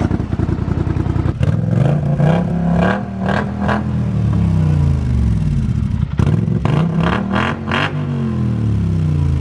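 Polaris Sportsman 850 ATV's parallel-twin engine revved twice through a Big Gun Evo U exhaust fitted with a quiet insert and spark arrestor. Each rev rises and falls back to idle over about three seconds, and the exhaust sounds not nearly as raspy in the low end.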